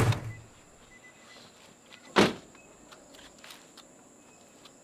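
A van's front door slamming shut once, a single sharp bang about two seconds in. It follows the dying tail of a heavy thump at the very start.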